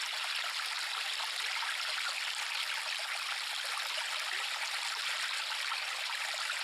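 Flowing river water, a steady rushing and trickling.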